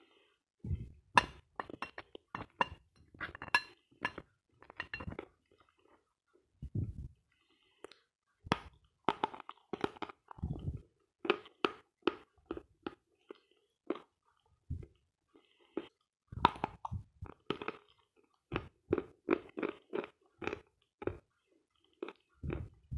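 Biting and chewing dry, dense edible chalk (the "Sloyka" variety). It makes runs of sharp, crackly crunches, broken by pauses of a second or two.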